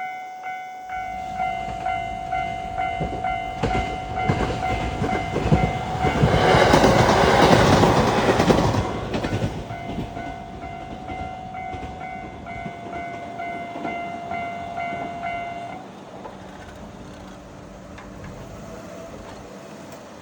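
Japanese level-crossing warning bell ringing in a rapid repeated ding while a JR East E653 series electric express train approaches and rushes past, loudest about six to nine seconds in with wheels clattering over the rails. The bell stops about sixteen seconds in as the crossing clears, leaving the train's rumble fading away.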